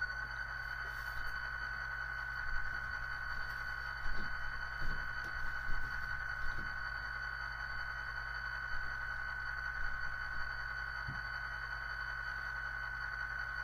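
HO scale ScaleTrains diesel locomotive model standing still and giving off a steady high-pitched whine over a low hum, with a few faint clicks about four to seven seconds in.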